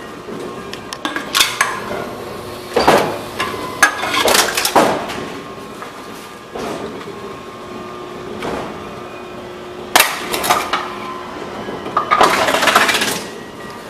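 Envipco CF-1500 reverse vending machine taking in empty bottles: irregular clinks and knocks as bottles are handled and fed in, with a denser clatter near the end, over a faint steady hum.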